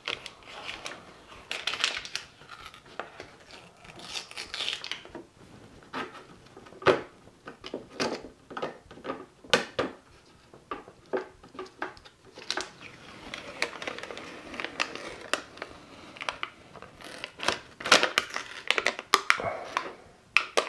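Protective adhesive film being peeled off an orange acrylic laser-shield panel. The plastic film crinkles and rustles in stretches, with scattered sharp clicks and taps as the sheet is handled.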